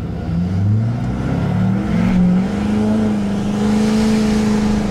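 Chevrolet Silverado 2500's Duramax turbo-diesel V8 under a full-throttle launch, heard from inside the cab: the engine note climbs in pitch in steps over the first couple of seconds, then holds steady at a high pitch while a hiss grows.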